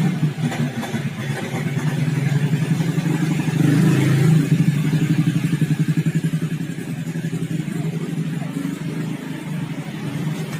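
A motorcycle engine running with a steady rapid pulse, loudest a few seconds in and then easing off slightly.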